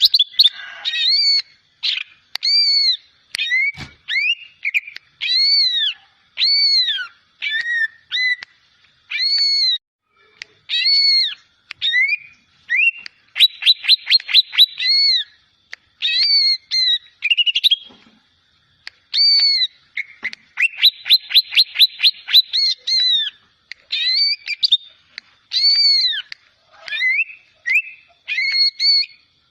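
Young green leafbird (cucak ijo) practising its song: a steady series of arched, whistled notes, broken twice by quick rapid trills, in the middle and later on.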